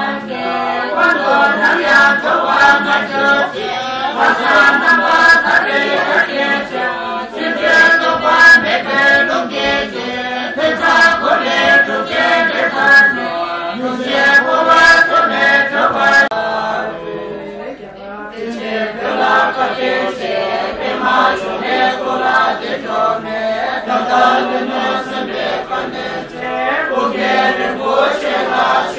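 A group of monks and lay men and women chanting Tibetan Buddhist prayers together in unison. The recitation runs on steadily, with a brief lull for breath a little past halfway.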